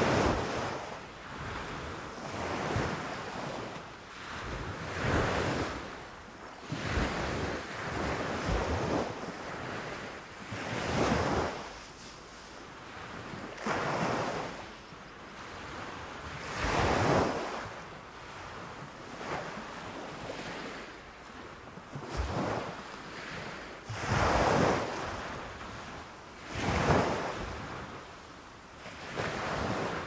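Small waves breaking on a sandy shore and washing up the beach in foam, one surge of surf every two to three seconds.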